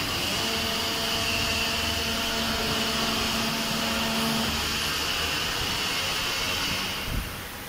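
Servo-driven hydraulic powder compacting press running through a pressing cycle. It makes a steady machine noise with a whine that holds for about four seconds, then the noise drops away about seven seconds in with a thump.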